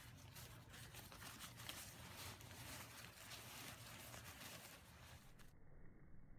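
Faint rustling and crinkling of the nylon fabric of a folded pop-up tent as it is pulled out of its carry bag, cutting off shortly before the end.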